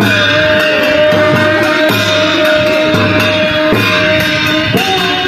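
Folk dance music: a drum and hand cymbals beaten in a steady beat, the cymbal strikes about twice a second, under one long held note that rises in pitch near the end.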